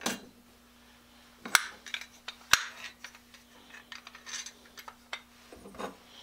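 Small steel band saw parts (upper axle bracket and its threaded adjustment screw) clinking and knocking against each other and the wooden workbench as they are handled and fitted together. A few sharp clicks stand out, the loudest about a second and a half and two and a half seconds in, then lighter scattered ticks.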